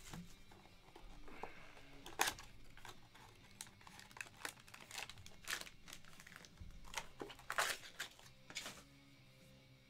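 Cardboard trading-card box and its plastic wrapping being handled and opened: scattered short rustles, crinkles and sharp scrapes, loudest about two seconds in and again near seven and a half seconds. Faint background music runs underneath.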